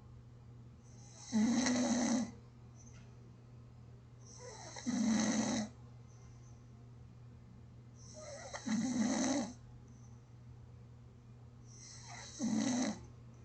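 A person snoring in sleep: four snores, about one every three and a half seconds, each a low buzzing snore with a breathy hiss. Quieter breathing builds between them, over a steady low hum.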